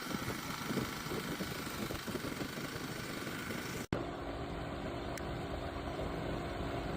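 Volkswagen Tiguan's engine running steadily at idle. The sound breaks off for an instant about four seconds in, then goes on as a steadier hum.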